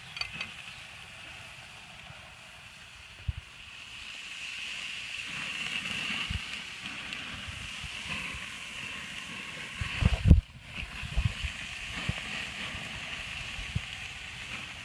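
Marinated flat iron steaks sizzling on a hot grill, a steady hiss that grows stronger a few seconds in. Low rumbles of wind on the microphone run under it, loudest about ten seconds in.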